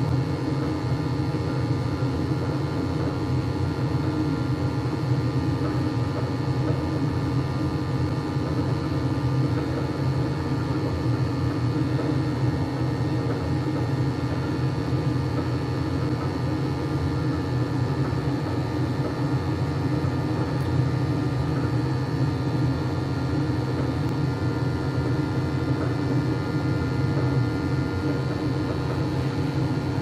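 Weil-McLain gas-fired hot water boiler running, a steady burner rumble and hum with a faint high whine over it, the burner turned down on its gas valve to bring down high carbon monoxide.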